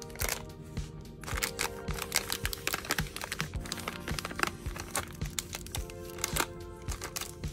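Plastic wrapper of a Peeps marshmallow chicks package crinkling in a quick, irregular run of crackles as it is handled and turned over, with background music playing.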